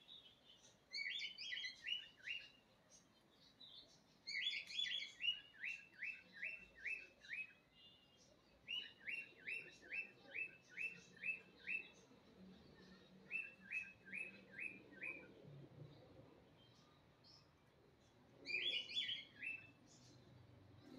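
A small bird chirping in runs of short, sharp chirps repeated at a steady pace, five runs in all with pauses between them.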